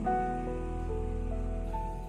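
Background music: held notes that change pitch every half second or so over a steady low bass.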